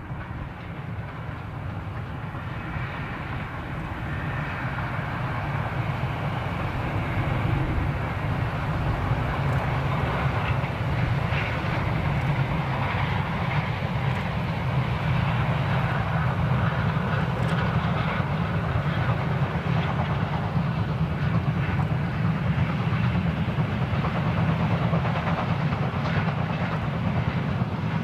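DR class 52.80 2-10-0 steam locomotive 52 8079 working a passenger train under heavy steam, with a steady rumble of exhaust and running gear. It grows louder over the first several seconds as the train draws nearer, then holds steady.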